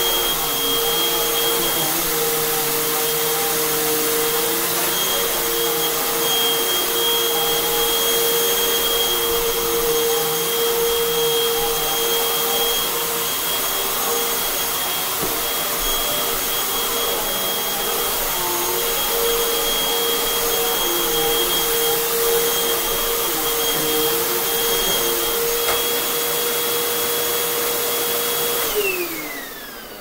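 2014 Hoover WindTunnel 2 Rewind (UH70825) upright vacuum cleaner running on a rug, with a steady motor whine. Near the end it is switched off and the whine falls in pitch as the motor spins down.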